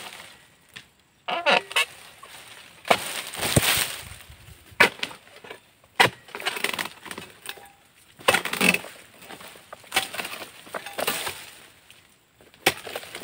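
Oil palm dodos, a chisel on a long metal pole, hacking into palm frond bases: sharp chopping strikes every second or two, mixed with longer rustling swishes.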